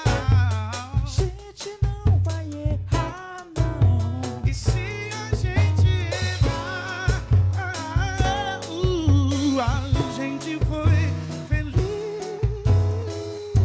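A pop song with a sung melody over a drum kit and a deep bass, playing at a steady beat.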